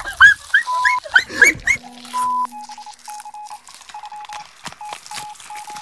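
A few short, high, rising squeals in the first second and a half. Then a run of short electronic beeps at one pitch starts, in an irregular pattern of short and long tones, with faint clicks between them.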